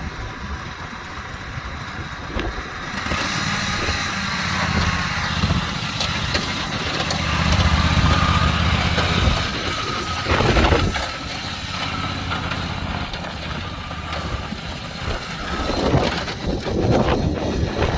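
Engine of a 2002 John Deere F725 front-mount riding mower running steadily, heard loudest in the first half, with wind noise on the microphone.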